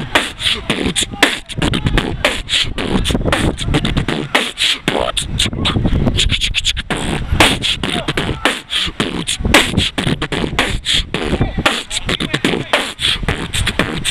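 A person beatboxing a steady hip hop beat: a fast run of mouth-made kick drum, snare and hi-hat sounds.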